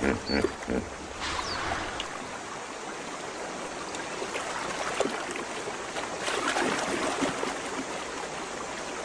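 River water splashing and sloshing around hippos moving in the shallows, swelling louder about a second in and again around six seconds in.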